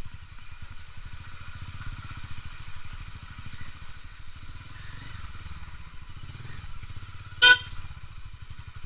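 Motorcycle engine running at a crawl, its firing pulses steady, with one short, loud beep of the horn about seven and a half seconds in.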